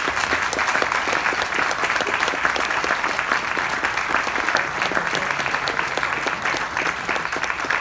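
A roomful of people applauding, with dense clapping that stays steady throughout.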